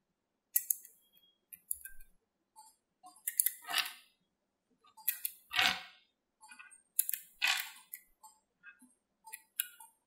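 Small black magnetic balls clicking and clinking as fingers snap and press them into place on a block built of them, in irregular bursts of sharp clicks and short rattles.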